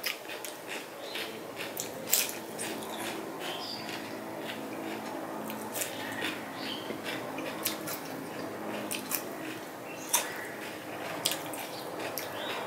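Close-up eating sounds: a mouthful of crisp food being bitten and chewed, with irregular crunchy clicks and wet mouth noises, the sharpest bites about two seconds in and again near ten seconds.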